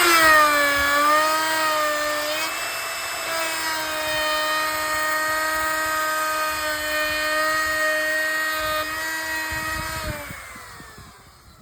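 Router motor with a 1/4-inch carbide round-over bit spinning up to a high, steady whine while routing the edge of a 1x6 board; the pitch sags briefly about a second in, then holds, and winds down near the end.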